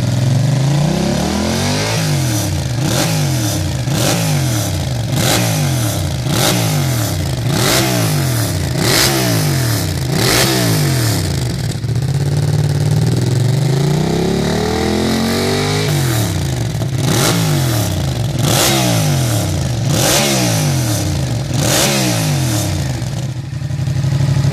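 A Yamaha MT-07's parallel-twin engine is revved over and over in short blips through a stainless twin-outlet aftermarket silencer. Each blip falls straight back to idle, and one longer, slower rev comes about halfway through.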